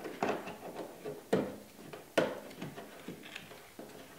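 Several light knocks and clunks from handling the Ridgid benchtop oscillating sander on the workbench, three of them sharper and about a second apart; the sander's motor is not running.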